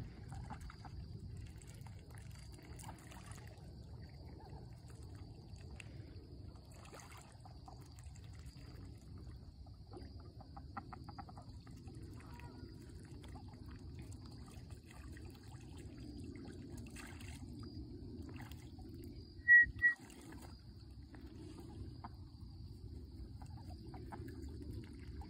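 Quiet farm-pond ambience: faint trickling and lapping water with a steady low rumble throughout. About two-thirds through come two short, sharp, high-pitched chirps close together, the loudest sounds here.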